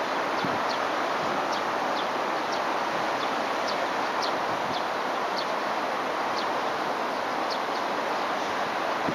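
Steady rushing of flowing river water, with short high bird chirps repeated irregularly about once a second.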